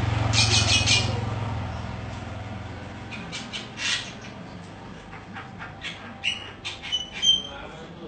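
A caged fantail making short, sharp chip calls: a quick cluster about a second in, then a run of short chips and clicks in the second half, coming closer together near the end.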